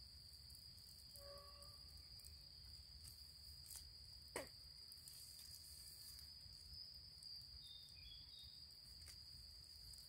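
Faint, steady insect song in the forest undergrowth: one continuous high-pitched tone. About four seconds in there is a single short, sharp sound that drops quickly in pitch.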